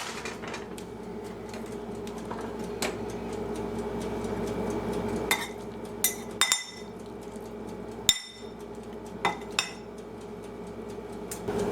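Utensil clinking and scraping against a skillet and serving dish as cooked pasta and chicken are transferred. Scattered light clicks, the sharpest bunched between about five and ten seconds in, over a steady hum.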